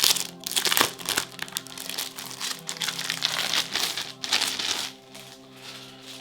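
Packaging wrap crinkling and rustling as it is pulled off a keyboard wrist rest, busy for about five seconds and easing off near the end, with background music underneath.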